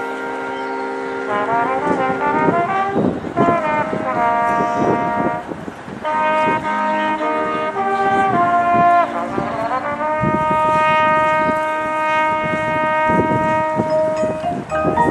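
Marching band brass section playing loud sustained chords with slides in pitch between them, over drum hits. A long chord is held from about ten seconds in.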